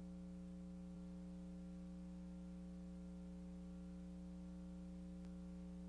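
Faint, steady electrical mains hum: a low buzz of several unchanging tones with nothing else over it.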